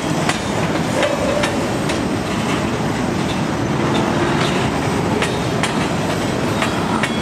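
Freight train of tank cars and empty centerbeam flatcars rolling past: a steady rumble of wheels on rail, with irregular sharp clicks as the wheels cross rail joints and a faint, brief wheel squeal now and then.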